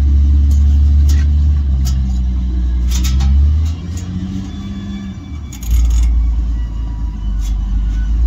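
A vehicle engine idling, a low steady rumble that drops away for a couple of seconds midway. Light scattered clicks of a socket ratchet tightening a bolt on a metal mirror protector.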